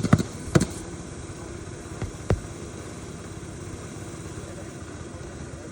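Nails being driven into an asphalt roof shingle: a quick run of sharp knocks in the first second, then two more a little after two seconds in. A steady engine hum runs underneath.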